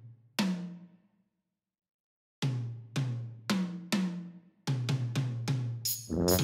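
Hammer taps on an excavator's caterpillar tread, played as pitched, drum-like knocks: a single knock, a pause, then a run of knocks that comes faster and faster. A burst of music begins near the end.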